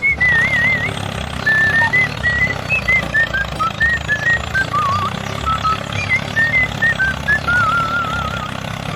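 Background music: a high melody of short notes, some of them wavering, over a steady low rumble like a running engine.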